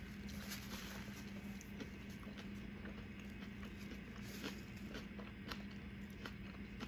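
Faint close-up chewing of a buffalo chicken wrap: scattered soft wet clicks and crunches, over a steady low hum.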